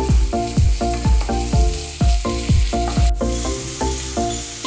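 Background music with a quick beat of low drum hits and a simple melody, over a softer sizzle of chopped onion frying in oil as it is stirred with a wooden spatula in a kadai.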